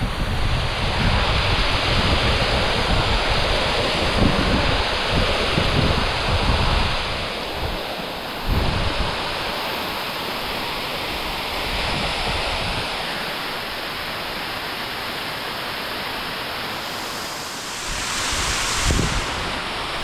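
Waterfall rushing steadily, with wind buffeting the microphone in low gusts.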